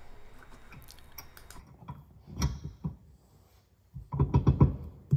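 Small metal clicks and rattles of a steel hitch pin and split pin being worked in a tow hitch receiver. A few come a little past the middle, and a denser run comes near the end.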